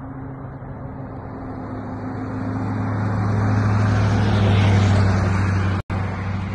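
A motor vehicle passing on the road, its engine hum and tyre noise growing louder to a peak a little past the middle and then fading. The audio cuts out for an instant near the end.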